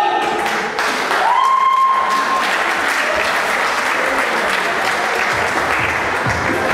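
Audience applauding and cheering in a hall, a dense steady clatter of clapping, with a brief held high tone about a second in.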